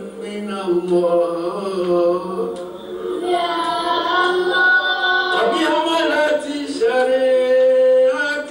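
A group of voices chanting Mawlid devotional poetry, with long held, wavering notes that rise higher and fuller about three seconds in.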